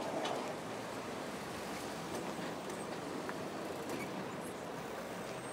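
Steady rushing road noise of vehicle traffic on a highway, with a faint low engine hum underneath.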